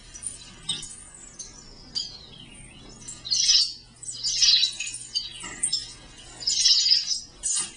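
The container for sound, a self-built electronic instrument played by moving the hinged flaps of a wooden box, giving out bursts of high, chirping electronic sound with quick sweeping glides in pitch, mostly falling. The bursts come in uneven waves, loudest a little past a third of the way through and near the end, over a low steady hum.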